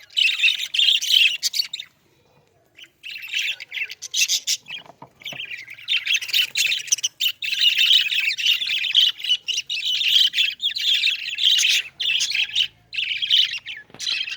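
A flock of budgerigars chattering with rapid, overlapping chirps, pausing briefly about two seconds in.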